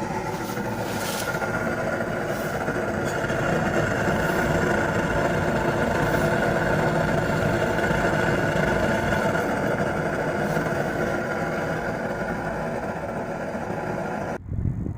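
Homemade waste-oil furnace burning steadily, a loud, even rushing noise with a steady hum running through it. The sound cuts off sharply near the end.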